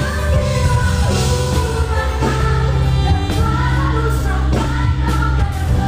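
Live pop concert music: singing over a band with keyboard and steady bass notes, the melody carried continuously by voice.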